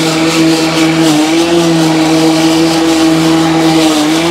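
Pellenc Rasion 2 battery-powered lawn mower running with a steady hum while mowing. Its pitch dips briefly about a second in and again near the end.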